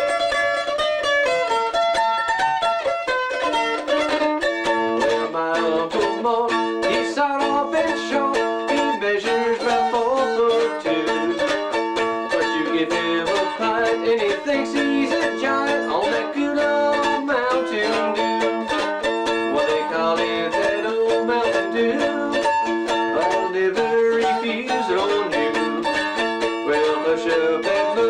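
Plucked string instrument played in quick, rapidly picked notes: a steady run of fast string-band style picking.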